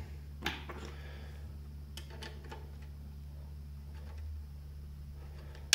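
Faint, scattered clicks of a thin metal pry tool working against the plastic clips of a NAS enclosure's light pipe, over a steady low hum.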